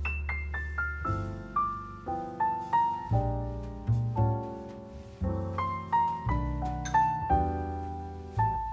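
Background piano music: a gentle melody of single struck notes over held bass notes, opening with a quick falling run.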